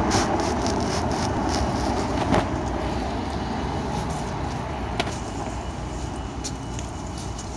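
A car going by on the street, loudest at the start and slowly fading away. A sharp click about two and a half seconds in, and a fainter one later.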